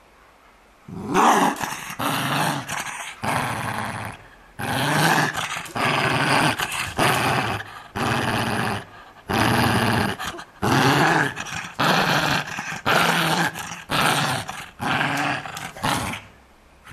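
Schipperke growling with a plush pillow in her mouth: a long string of possessive growls, each about a second long with short breaks for breath, guarding her pillow. The growling starts about a second in.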